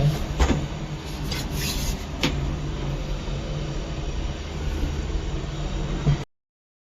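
Steady low rumble with a couple of light knocks. The sound cuts out abruptly about six seconds in.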